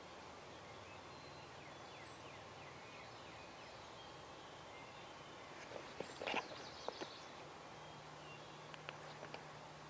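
A wild turkey tom gobbles once, in a short rattling burst about six seconds in, with a few sharper notes just after. Faint songbird chirps sound over the still field.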